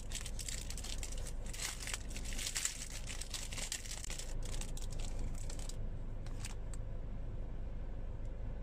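Clear plastic bread wrapper crinkling and crackling as it is handled and pulled open by hand, thinning out after about six seconds to a few last rustles.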